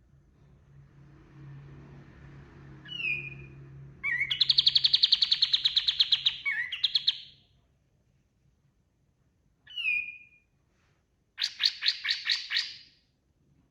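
Kapas tembak songbird singing: bouts of fast rattling trills of rapidly repeated high notes, the longest lasting about three seconds, separated by short falling whistled notes. A faint low hum lies under the first half.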